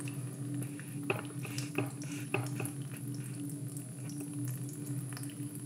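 Thin trickle of tap water falling onto a carbon steel knife blade over a sink, with irregular small splashes and drips, over a steady low hum.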